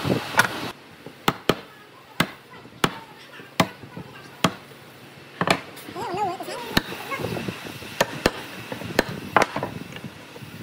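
A wood chisel chopping out a notch in old railway-sleeper timber: about a dozen sharp knocks at irregular intervals, roughly half a second to a second apart.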